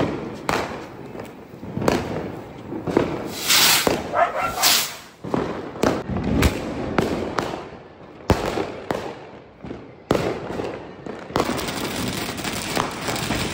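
Diwali firecrackers going off: scattered sharp cracks and bangs. From about eleven seconds in, a steady hiss as a cone fountain firework (anar) sprays a column of sparks.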